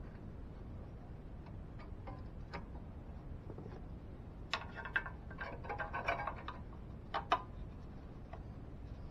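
Light metallic clicks and rattles as a scroll saw blade is fitted into its clamp and threaded through the table. The clicking grows into a rattling cluster about halfway through, with two sharper clicks.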